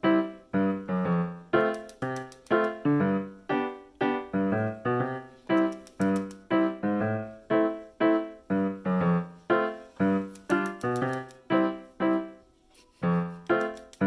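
Background music: a light keyboard tune of short, quickly fading notes, about two a second, with a brief pause near the end.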